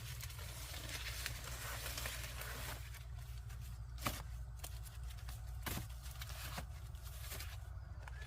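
Dry corn plants rustling, with several sharp snaps, over a steady low rumble.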